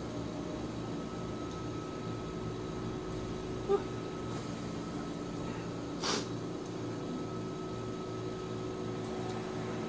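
Wooden chopsticks set down against the bowl with a light clack a little before four seconds, then a short, sharp nose blow into a cloth about six seconds in, over a steady room hum.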